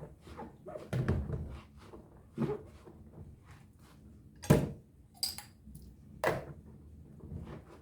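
Scattered household knocks and clatters, a sharp knock about four and a half seconds in being the loudest.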